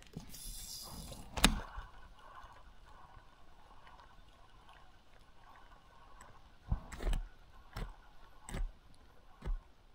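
Stream water running faintly, with a hiss in the first second and one sharp click about a second and a half in. Near the end come four or five dull thumps about a second apart.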